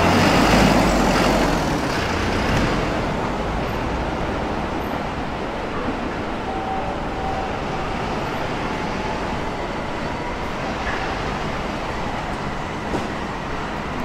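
A small truck drives past close by, loudest in the first two seconds with engine and tyre rumble, then a steady hum of city road traffic.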